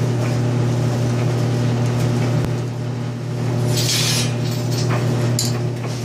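A steady low hum with several overtones runs throughout. About four seconds in, a screwdriver on the metal cover of the circulating pump's wiring box makes a brief metallic scrape, followed by a couple of small clinks.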